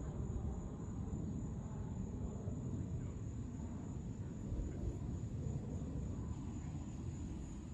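Distant jet airliner passing high overhead: a steady low rumble. A thin, steady, high insect drone runs beneath it.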